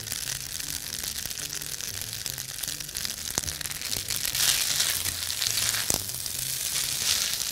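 Spaghetti sizzling in a hot non-stick frying pan with a little ghee as grated cheese goes on and the pasta is tossed with tongs. The sizzle grows louder about halfway through as the pasta is turned, with two sharp clicks.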